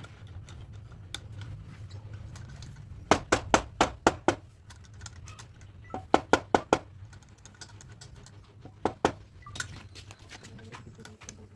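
Sharp knocks in three quick runs: about six in a row, then five, then two, over a low steady hum.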